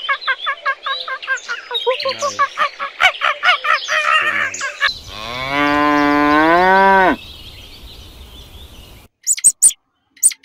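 A rapid series of short, high chattering calls from a monkey, then one long cow moo, about a second and a half, rising and then falling in pitch. A few short high squeaks come near the end.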